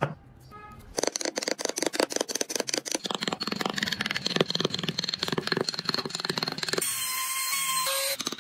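A hand chisel cutting and scraping wood in quick, closely spaced strokes while carving a wheel rim's spokes. Near the end, a small rotary power tool runs for about a second.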